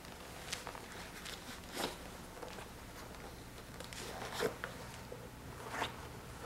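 Soft rustles and a few light knocks of shoes being pulled off and handled, with four louder swishes at about half a second, two seconds, four and a half seconds and near six seconds, over a low steady hum.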